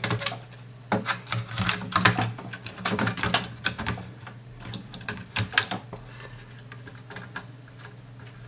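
Clicks and knocks of a circuit board being handled and set down into a sheet-metal TV chassis: a quick run of clatter for about six seconds, then only a few faint taps.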